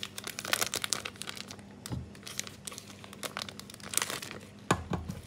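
Thin plastic bag crinkling as sticky SP cake emulsifier is squeezed out of it and scraped off with a silicone spatula, with a few soft knocks about two seconds in and near the end.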